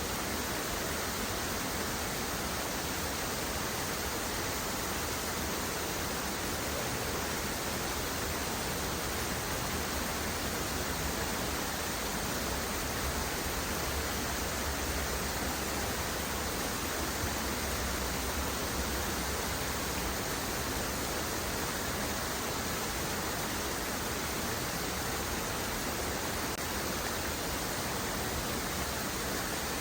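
Waterfall: steady, unbroken rushing of falling water, an even hiss with no separate splashes or changes.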